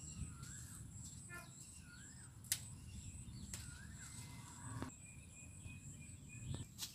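Quiet garden ambience: a bird repeats a short up-and-down whistled note about every second and a half, and a few sharp clicks come between the calls.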